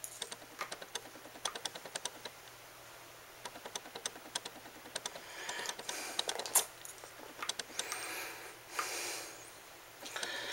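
Faint, quick plastic clicks and taps, with a few short stretches of soft rubbing, as a fiber-optic connector is pulled out of an inspection scope's adapter, wiped dry and plugged back in. One click about two-thirds through stands out louder.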